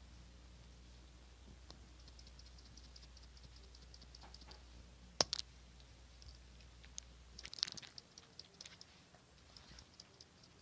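White slime being pressed and poked by hand, giving a run of small quick clicks and pops, with a sharper click about five seconds in and a short cluster of louder ones near eight seconds.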